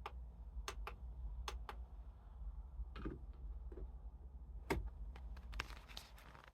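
About ten sharp clicks at uneven intervals, bunching together near the end, over a steady low hum. Everything cuts off abruptly at the end.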